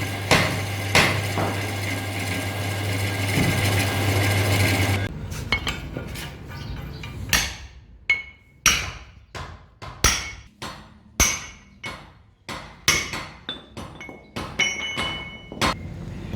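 Hammer blows on metal, some leaving a short metallic ring. A steady low machine hum runs under the first few blows, then cuts off about five seconds in, leaving the strikes spaced irregularly, roughly one every half-second to second.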